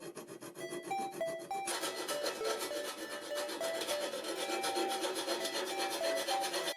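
Quick rasping strokes of a hand tool working the cut bronze edge of a Paiste 2002 crash cymbal, getting louder about two seconds in. A light melodic background music plays over it.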